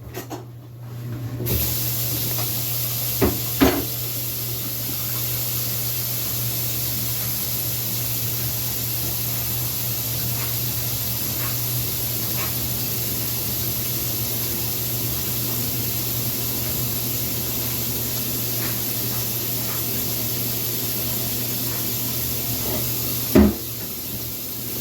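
Steady hiss of water running from a kitchen tap while the pan of browned ground beef is drained. There are a couple of clinks a few seconds in, and a knock near the end as the hiss cuts off.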